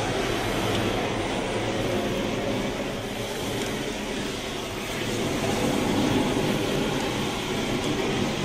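Room fire burning hard inside a small bedroom, giving a steady rushing noise with no break.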